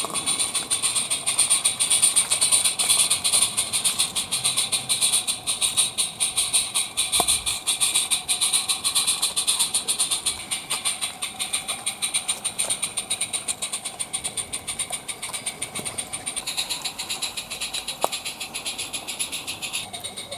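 Live-steam G-scale model locomotive running under load. Its exhaust beats in fast, even chuffs over a steady hiss, with a few sharp clicks, and it grows gradually quieter over the second half.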